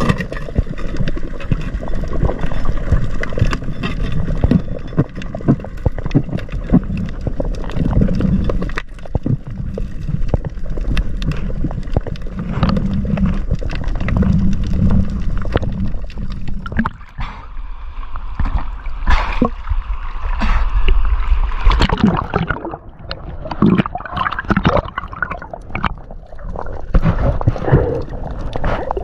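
Underwater sound through a diving camera's housing: a steady gurgling, sloshing wash of water as the diver moves, with scattered clicks and knocks that stand out more sharply in the second half.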